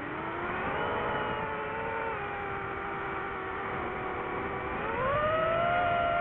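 DJI FPV drone's motors and propellers whining, the pitch rising shortly after the start, dropping about two seconds in, then climbing sharply near five seconds and holding high as the throttle changes.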